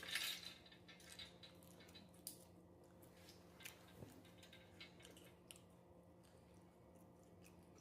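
Faint eating sounds of nachos being chewed: scattered soft crunches and wet mouth clicks, with a louder crunch right at the start, over a faint steady hum.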